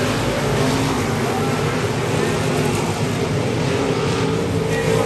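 Race car engines running together on the track, a steady loud drone of several engine pitches with some rising and falling near the end.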